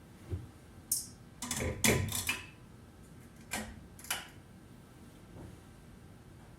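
A run of sharp clicks and knocks over a low steady background: a single knock, a sharp click about a second in, a rattling cluster of clicks just before the two-second mark, and two more clicks a little past the middle.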